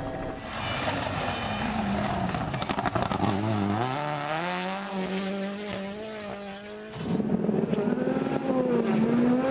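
Rally car engines at racing speed: one engine's pitch falls away, then climbs and holds steady at high revs. About seven seconds in there is an abrupt cut to another car's engine revving and shifting.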